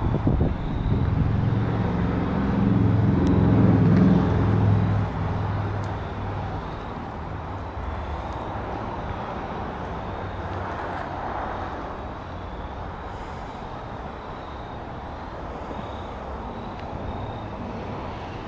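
A motor vehicle's engine running, louder over the first few seconds with a peak about four seconds in, then fading by about six seconds into steady background noise.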